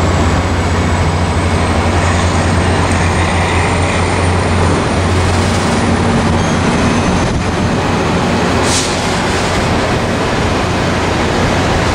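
Virginia Railway Express bilevel commuter cars rolling past along the platform: a loud, steady rumble of wheels on the rails with a deep hum underneath.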